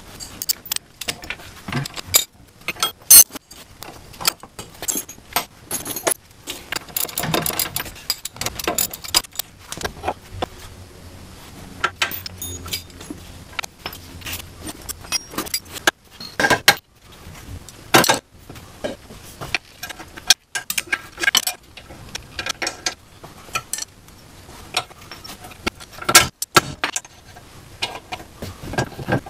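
Hand tools clinking and clanking against the metal of a Mazda Miata's front steering and suspension parts as they are fitted: irregular sharp metal clicks and knocks, loudest about three seconds in and again near the end.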